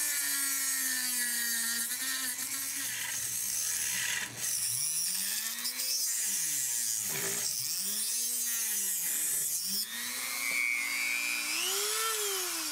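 Handheld rotary tool running at high speed, grinding into the bottom of the metal can of an old electrolytic capacitor. Its whine sags and climbs back again and again as the bit bites and lets go, over a high hiss of cutting.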